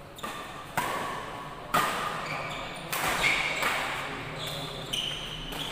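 Badminton rackets striking a shuttlecock in a rally, about six sharp hits roughly a second apart, each ringing briefly in a large hall.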